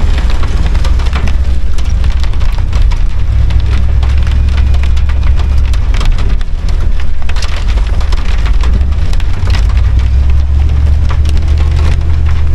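Rain pattering and crackling on the windshield and body of a 2003 Dodge Ram Van, heard from inside the cab while driving, as dense irregular clicks. Under it runs a loud, steady low rumble of the van's engine and tyres on the wet road.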